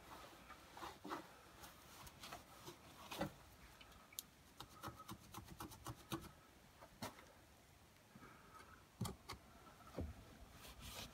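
Faint cloth rubbing and wiping over the moulded face and rim of a vintage sign, in short irregular scuffs with a few light taps.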